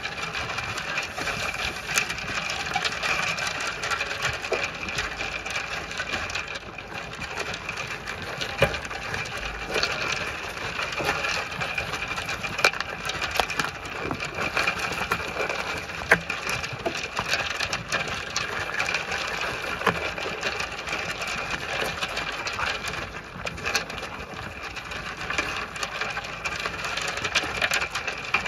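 Zwartbles sheep eating feed nuts from a metal trough right at the microphone: a steady dense crunching and chewing, scattered with sharp clicks and knocks of muzzles and feed against the trough.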